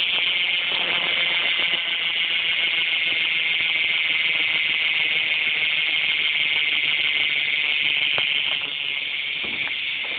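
Fit VH1 BMX bike's rear hub ratcheting as the wheel spins freely: a steady, fast, high-pitched clicking buzz from the pawls that eases off a little about eight seconds in.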